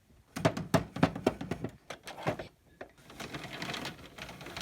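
Hands moving plastic dolls and toy pieces: a quick run of sharp clicks and taps, then a longer rustling scrape.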